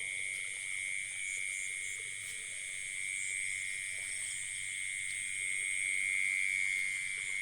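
Steady night chorus of calling frogs and insects, a continuous high-pitched, even drone.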